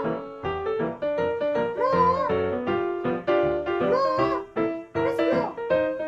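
Upbeat background music: short, bouncy pitched notes in a steady rhythm, with a wavering held tone recurring about every two seconds.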